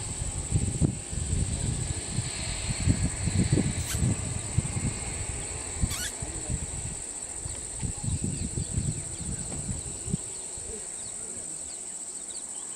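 Steady high-pitched insect drone, with gusty wind rumbling on the microphone for the first ten seconds and two sharp clicks about four and six seconds in.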